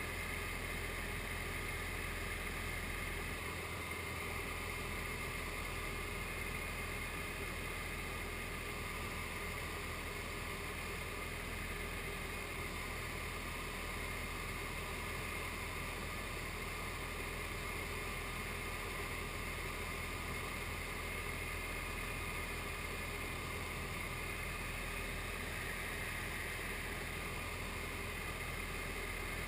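SD-1 Minisport ultralight aircraft's engine and propeller running steadily in flight, a constant drone with rushing air noise.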